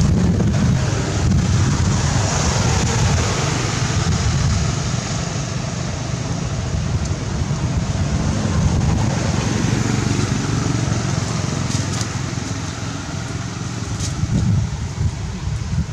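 Wind buffeting the camera microphone: a loud, steady low rumble with hiss and no clear pitch.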